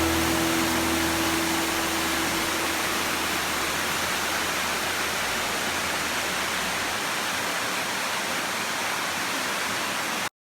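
Waterfall rushing steadily, with held notes of background music fading out over the first few seconds. The sound cuts off abruptly near the end.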